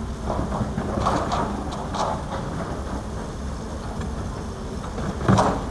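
Caterpillar excavator diesel engines running steadily while an excavator loads a dump truck, with a series of short clanks and clatters from the bucket and load, the loudest near the end.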